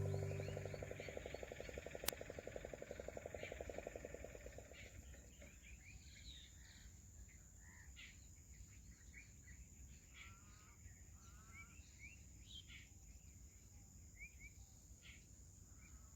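The last chord of an acoustic guitar song rings out and fades over the first few seconds, with a single sharp click about two seconds in. After that, faint birdsong: scattered short chirps and a few quick trills over a steady high hiss.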